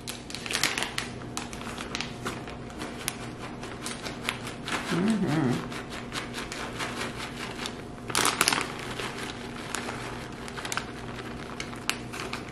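Plastic bag of shredded cheese crinkling and rustling as the cheese is shaken out of it, with a louder rustle about eight seconds in.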